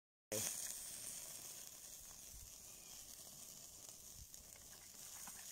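Shashlik sizzling in a grill basket over hot coals, with steam hissing where vinegar-water has just been poured over it. The hiss starts suddenly a moment in and slowly dies down.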